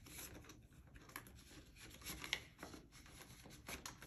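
Faint rustling and scattered small clicks of clear plastic cash envelopes being handled and flipped in a ring-binder budget planner.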